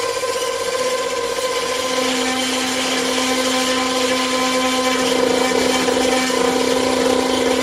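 Feedback saxophone sounding harsh noise: steady, held feedback tones over a dense, grainy buzzing, with a lower held tone coming in about a second in.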